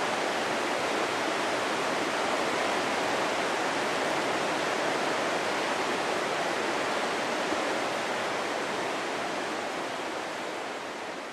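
Steady rush of fast-flowing river water over rapids, fading a little near the end.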